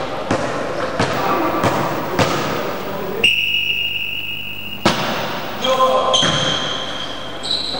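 A basketball bouncing on a sports-hall floor, with a few echoing thuds about half a second apart. A steady high tone then sounds for about a second and a half and is cut off by a loud bang about five seconds in, and more high tones follow near the end.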